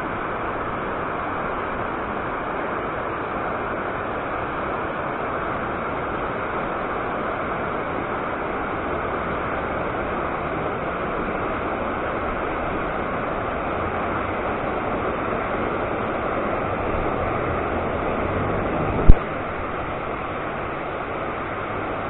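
Steady rushing of river water pouring over a low weir, with one sharp thump near the end.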